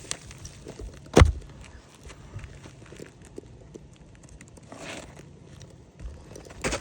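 Hand work on an asphalt shingle roof: one sharp knock about a second in, then scattered light taps and a short scraping rustle near five seconds.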